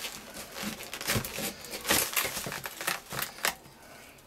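Knife blade cutting through a hard plastic clamshell package: an irregular run of sharp crackles and clicks from the stiff plastic, which stops about three and a half seconds in.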